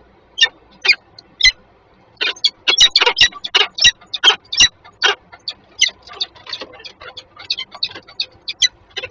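Peregrine falcons calling excitedly during a food pass from male to female: a few spaced, sharp calls, then from about two seconds in a fast, harsh series of several calls a second.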